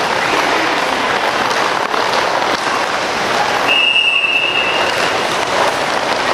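Several sets of roller skates rolling across a sport-court floor, a steady rolling noise, with one long, steady whistle blast a little under four seconds in.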